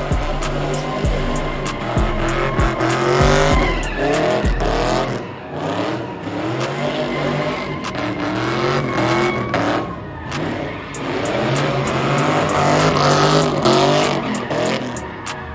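Pontiac G8 sedan doing donuts: its engine revs rise and fall over and over as the tyres squeal and spin.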